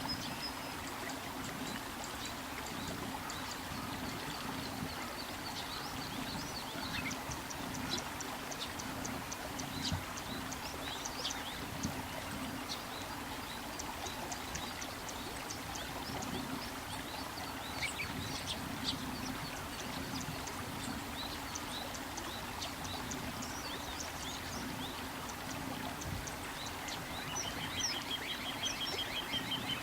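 Little ringed plovers calling: many short, high, whistled notes throughout, and a fast trill of rapidly repeated notes near the end. A steady rush of river water runs underneath.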